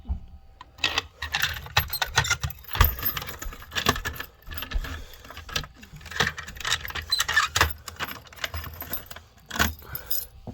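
Handling noise: an irregular run of clicks, rattles and metallic jangling, like keys or small metal parts being handled.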